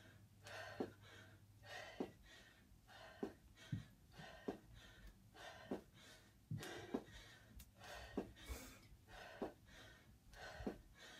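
A woman breathing hard and gasping through repeated squat jumps, with soft thuds of her sneakers landing on a rug, about one and a half a second.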